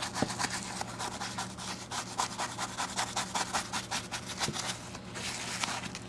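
Small bristle brush scrubbing a leather shift boot lathered with leather cleaner, in quick repeated scratchy strokes, several a second.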